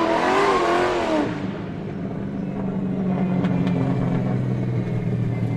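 Car sound effect: tyres squealing with a wavering pitch for about the first second, then a car engine running steadily at an even, low pitch.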